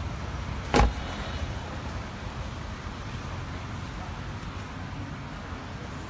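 A car door shutting with a single sharp thump about a second in, over a steady low rumble of background noise.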